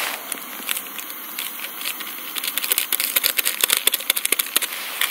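A packet of instant coffee crinkling and being shaken out into a mug, with a quick run of crackling ticks from about halfway through. Under it, the steady hiss of a liquid-fuel camp stove burning under the kettle.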